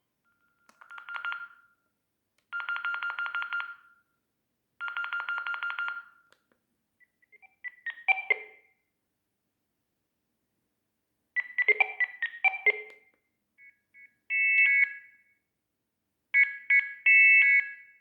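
Sagem myX-3 mobile phone playing short electronic alert tones through its small speaker: a buzzy pulsed beep sounds three times, then several brief chirping and beeping jingles follow with pauses between them.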